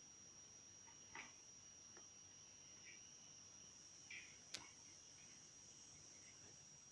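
Near silence: a faint steady high tone, with a few faint short chirps and one sharp click a little past halfway.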